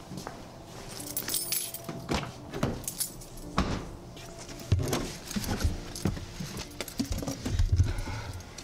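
Keys jingling amid a run of clicks and thumps as a car door is opened and someone climbs into the seat.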